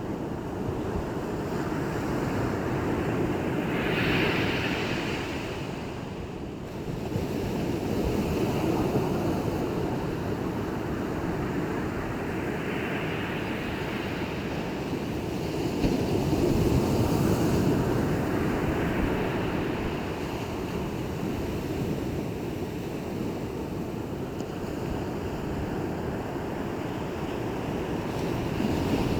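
Sea waves breaking and washing onto a shore: a continuous rush of surf that swells and eases every several seconds.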